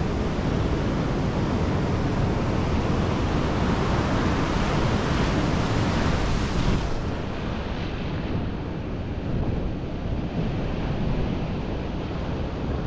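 Ocean surf washing on the beach, with wind buffeting the microphone; the hiss of the wash drops off suddenly about seven seconds in.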